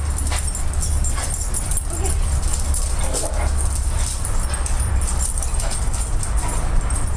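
Several dogs moving about and playing, with a few brief, faint dog vocalizations about two and three seconds in, over a steady low rumble.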